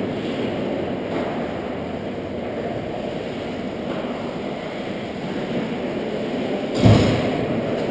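Indoor ice rink ambience picked up by a camera mounted on the hockey goal: a steady low rumble, with one sudden loud thump about seven seconds in.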